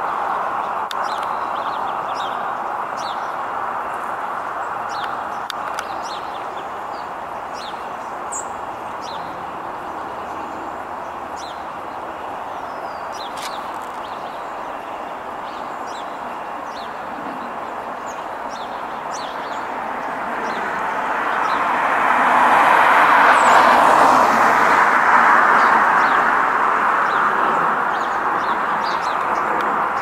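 Steady street traffic noise that swells as a vehicle passes, loudest a little past the middle, with small birds chirping briefly over it.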